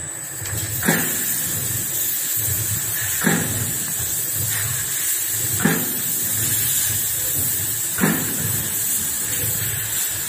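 Bread dough sheeting and forming line running steadily, with a high whine over a low pulsing drive. A sharp knock comes every two and a half seconds or so, four times.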